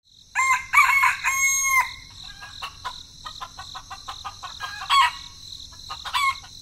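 Bird calls: a loud crow of a few notes in the first two seconds, with shorter calls about five and six seconds in, over a steady high insect buzz and many quick clicking chirps.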